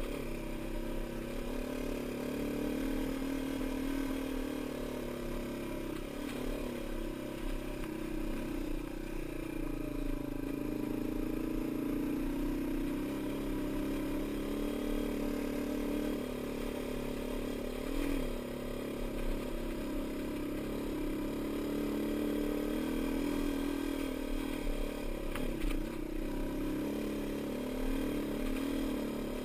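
Dirt bike engine running steadily under load while climbing a rough gravel trail, its pitch shifting a little with the throttle a few times.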